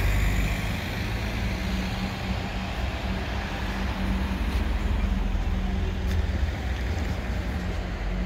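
Steady low rumble of motor vehicle noise with a faint steady hum.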